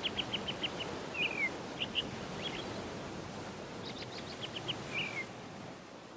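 A songbird calling: a quick run of short, high chirps ending in a short falling note, repeated about four seconds in, over a steady outdoor hiss.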